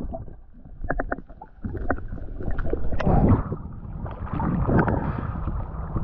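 Seawater sloshing and splashing around the microphone at the surface, with wind buffeting the microphone and a few sharp ticks about a second in.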